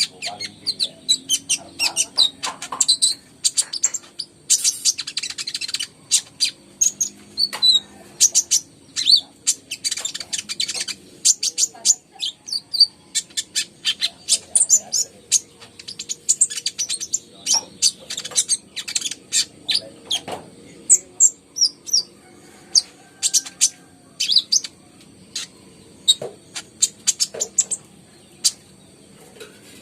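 Kolibri ninja sunbird singing a rapid, busy run of sharp high chirps and trills. It is a lure song played to get reluctant caged birds singing.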